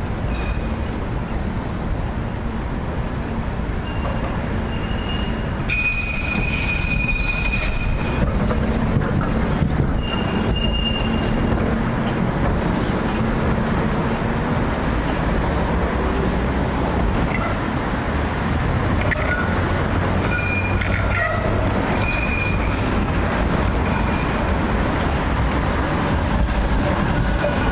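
Trams passing close on curved street track: a Wiener Linien low-floor tram, then a Wiener Lokalbahnen car, their steel wheels rumbling on the rails. Several times the wheels squeal in high, thin tones on the curve.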